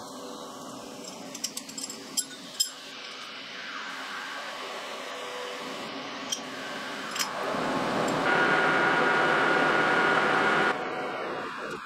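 Sharp metallic clinks as a steel splined shaft is handled into a lathe's three-jaw chuck. A steady whirring hiss then builds and grows louder for a couple of seconds, with a faint whistle, and cuts off suddenly near the end.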